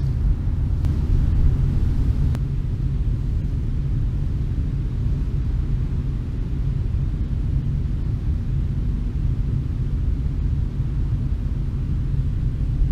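Wind buffeting the camera's microphone: a steady, uneven low rumble.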